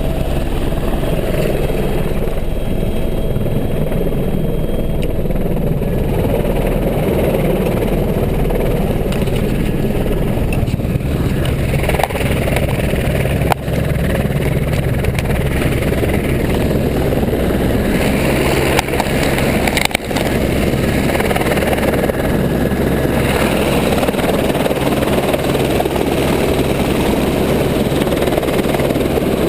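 Helicopter turbine and rotor noise heard on board in flight: a loud, steady drone with a low hum.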